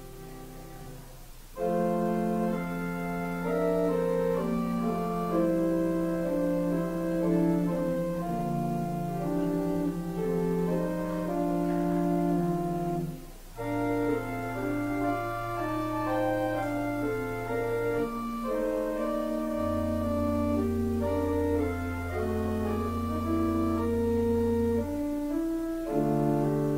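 Organ music: slow chords held over long sustained bass notes. It gets louder about a second and a half in and breaks off briefly about halfway through.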